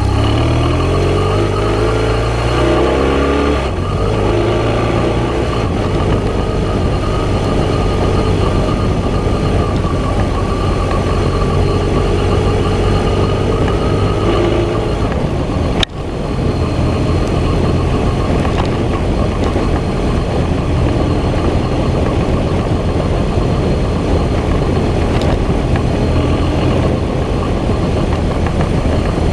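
Vehicle engine running while driving along a dirt track. Its note shifts over the first few seconds, then holds steady. There is a short click and a brief dip in level about halfway through.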